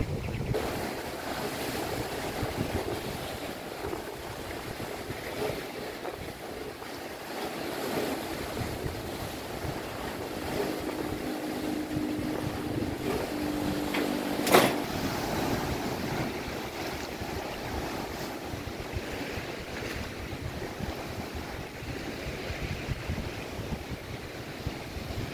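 Strong wind buffeting the microphone over waves breaking on a lake, rising and falling in gusts. A faint steady hum comes in about ten seconds in, and a single sharp knock sounds about halfway through.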